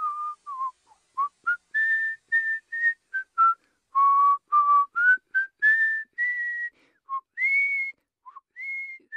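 A person whistling a melody: a string of clear single notes, some short and some held about half a second, with brief gaps between them.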